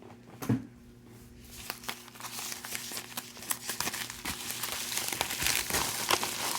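A single knock about half a second in, then packing material crinkling and rustling with many small crackles, getting busier from about a second and a half in, as a shipping box is opened and unpacked by hand.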